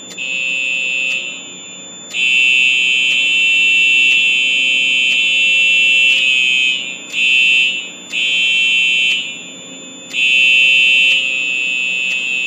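Fire alarm horns sounding a shrill, piercing tone that cuts in and out unevenly, with long and short stretches of sound and gaps between them; faint regular clicks run through it.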